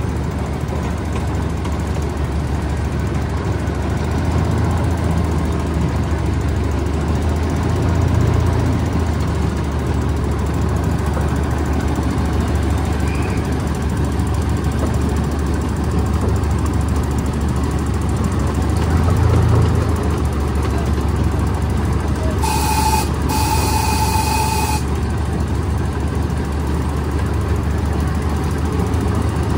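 Miniature park train running along its track: the small locomotive's engine and the wheels on the rails make a steady low rumble and clatter. About two-thirds of the way through, a horn sounds in two blasts, a short one and then a longer one.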